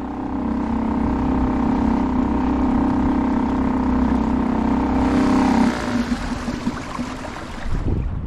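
Boat motor running at a steady pitch, cutting off about five and a half seconds in, after which only wind and water noise remain.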